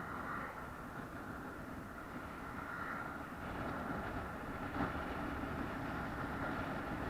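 Steady rumble of a moving vehicle, with a faint steady whine in it and one brief knock about five seconds in.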